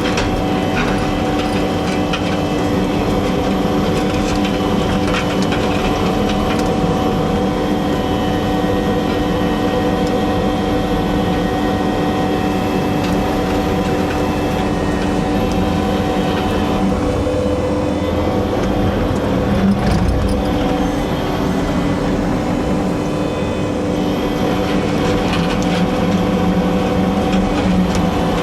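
Vehicle driving at a steady speed: engine and road noise drone on evenly, with a few steady hum tones.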